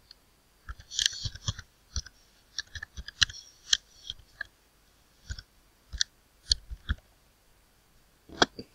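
Computer keyboard being typed on: irregular key clicks as a short line of text is entered, with a sharper click near the end.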